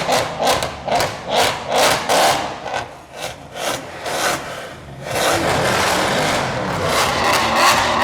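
Mercedes-AMG V8 exhausts being revved: quick throttle blips about two a second for the first couple of seconds, then a lull, then from about five seconds in a steady, loud engine sound that keeps going.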